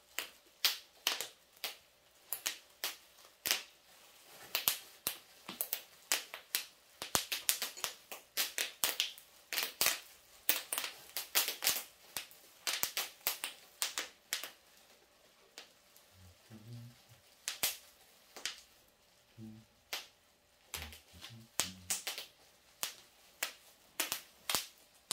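Quick, irregular scratchy strokes of a paintbrush working acrylic paint onto paper, about two or three a second.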